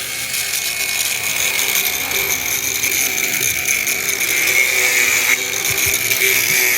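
A power tool cutting, running steadily with a high whine; the whine shifts slightly about five seconds in.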